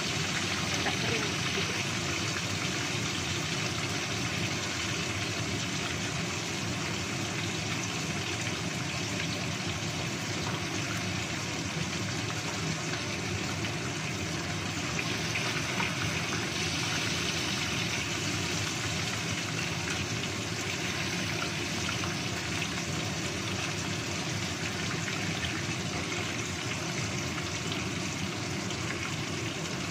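Whole tilapia deep-frying in hot oil in a wok: a steady sizzle with fine crackling, as the thick fish cooks until its skin turns golden.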